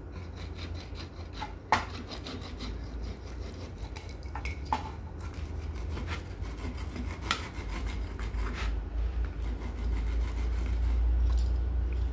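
Wood being rasped with a multi-tool's metal grater in quick repeated scraping strokes to shave off fine sawdust for fire-starting tinder, with a few sharper clicks along the way.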